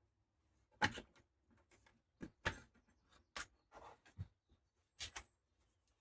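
Scattered light clicks and knocks of a chainsaw sharpening tool and chain being handled, about eight irregular taps.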